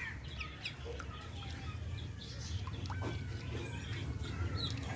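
Ducklings peeping in short, scattered chirps over a steady low rumble.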